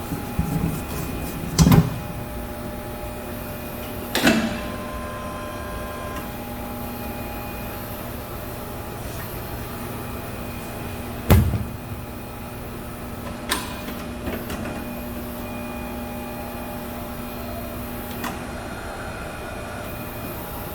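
Tire changer machine remounting a patched tire onto its rim: several sharp clunks, the loudest about two, four and eleven seconds in, over a steady shop hum.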